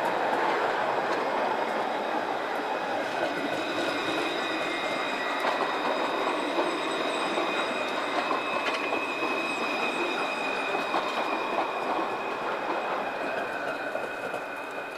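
Alstom Citadis low-floor tram rolling slowly through curved track and points, its steel wheels squealing in steady high tones on the curve, with a few sharp clicks as the wheels cross the rail joints of the crossings.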